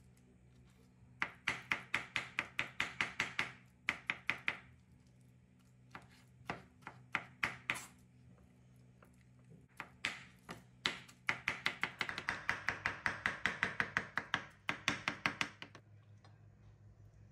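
Kitchen knife chopping soft roasted eggplant on a wooden cutting board, in quick runs of about six or seven strokes a second with short pauses between runs. The chopping stops shortly before the end.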